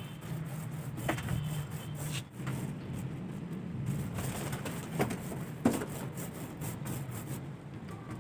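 Hand tool rubbing and scraping over the surface of a wooden speaker cabinet as a textured cement finish is worked on, with a few short sharp knocks, over a steady low hum.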